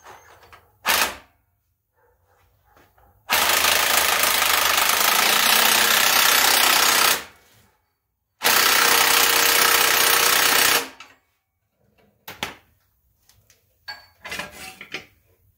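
Impact wrench hammering in two runs, about four seconds and then about two and a half seconds, driving the nut onto the swing-arm bolt. A few short metal clanks of tools and parts come before and after the runs.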